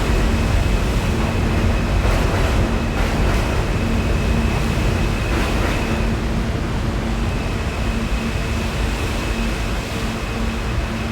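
R160 subway train running with a steady low rumble, a constant high-pitched whine over it and a few faint clicks, the noise easing off slightly toward the end.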